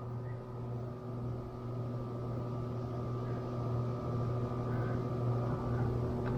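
Steady low mechanical hum of a running machine, growing gradually louder.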